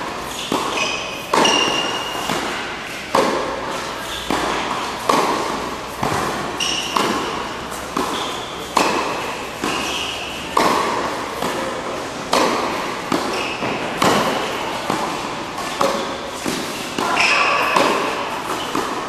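Tennis balls struck back and forth with rackets in a volley rally, about one sharp hit a second. Each hit echoes in a large indoor hall.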